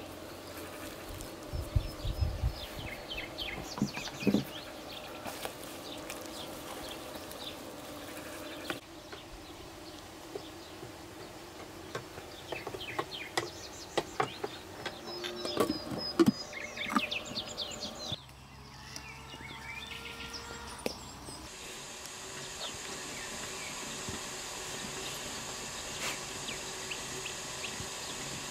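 Rural outdoor ambience: birds chirping and insects buzzing, with scattered sharp clicks and knocks of pots and utensils being handled. About two-thirds of the way through, the background changes to a steady high hiss.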